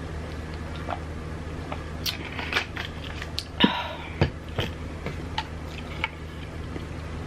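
Close-mic chewing of a sushi roll: a run of short, crisp crunches and wet mouth clicks, loudest about halfway through, over a steady low hum.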